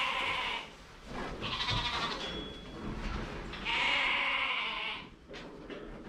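Shetland sheep bleating: three long bleats, one ending about half a second in, one around two seconds in, and the loudest around four seconds in.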